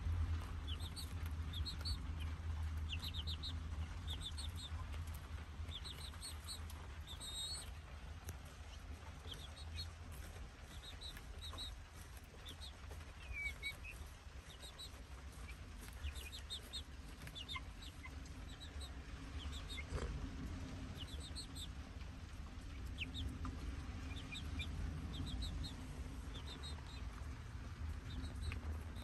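Young chicks peeping while feeding: short high peeps in quick runs of two to four, repeated every second or so, over a low steady rumble.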